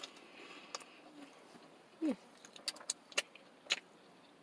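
A person eating a burrito: scattered small clicks and crinkles of chewing and handling the food, with a short low vocal sound about two seconds in.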